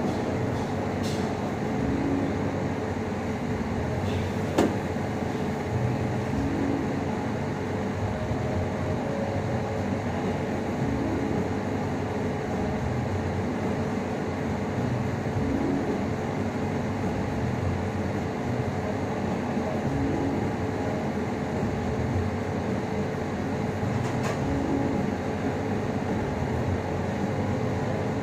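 Steady mechanical hum with a constant mid-pitched tone and a low pulsing about every two seconds; a single sharp click about four and a half seconds in.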